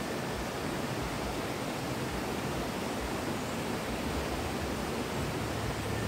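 Steady rush of running water, an even hiss with no distinct splashes.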